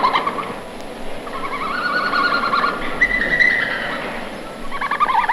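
Red panda calling in bouts of rapid, squealing chirps that rise and fall in pitch, with short breaks between bouts.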